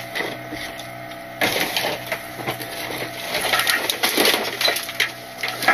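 Trash crunching and cracking in the hopper of a Load Master Legacy rear-loader garbage truck. It sets in suddenly about a second and a half in and goes on as a dense run of cracks and snaps, over the steady hum of the truck running.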